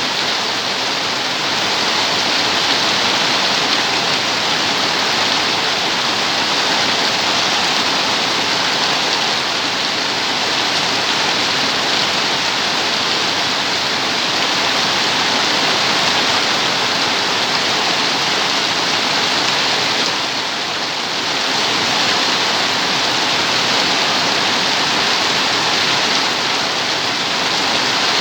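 Rain falling steadily, a dense even hiss without distinct drops, easing slightly for a moment about twenty seconds in.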